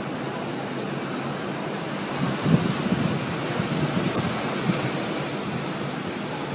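Strong storm wind under a nearby tornado, rushing steadily and buffeting the microphone, with heavier gusts about two seconds in.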